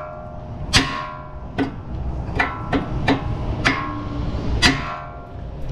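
A hammer striking a steel steering knuckle about eight times at an uneven pace, each blow ringing briefly, to shock the tie rod end's tapered stud loose. Guitar music plays underneath.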